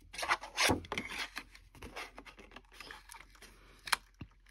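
Paper pages being handled and slid into a hole punch: rubbing and scraping, two louder rustles in the first second, small ticks, and one sharp click near the end.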